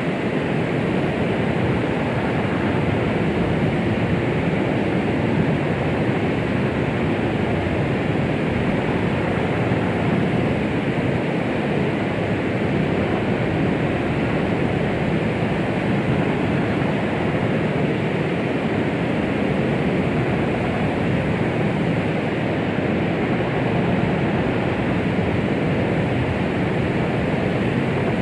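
Continuous womb-sound white noise for soothing a baby: a steady, unchanging rushing hiss, muffled, with little top end and no heartbeat or other events.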